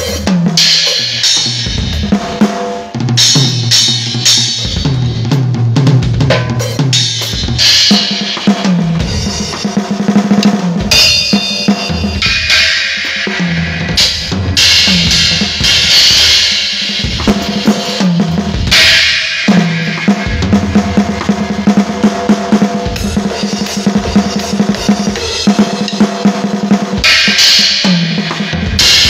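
Drum kit played as a solo: fast snare and bass-drum patterns with rolling tom fills that step up and down in pitch, broken by repeated cymbal crashes.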